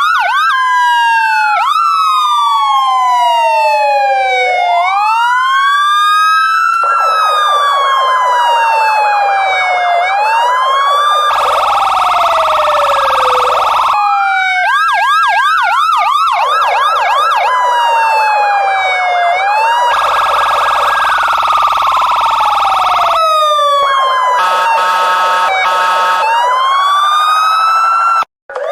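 Electronic police car siren switching between patterns: slow rising-and-falling wails, quick yelps, stretches of very rapid warble, and two steady blaring tones of a few seconds each. Near the end it cuts out for a moment, then starts again with a rising wail.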